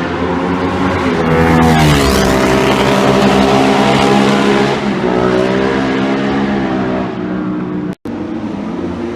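Superbike engines at high revs on a race circuit. One bike passes about two seconds in, its engine note dropping sharply in pitch, and then other engines hold steady, slowly shifting notes. The sound cuts out for an instant near the end.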